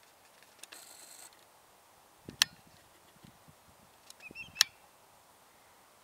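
Two sharp clicks about two seconds apart over a faint background, with a short hiss about half a second in and a few faint short chirps just before the second click.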